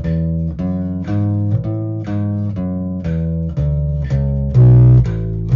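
Electric bass guitar played with a pick in steady alternating down- and upstrokes as eighth notes, about two notes a second, moving between pitches. Each note has a sharp pick attack, and one note near the end is louder.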